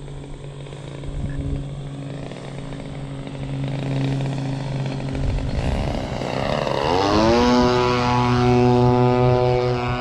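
Large RC model plane's motor and propeller: a faint steady hum, then the plane passes low about seven seconds in with a falling pitch and runs on with a loud, steady tone at high power as it climbs away. Low wind rumble on the microphone.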